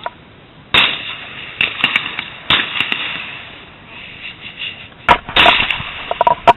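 Shotgun reports: about three sharp bangs with trailing echoes, about a second, two and a half and five seconds in, with smaller clicks between.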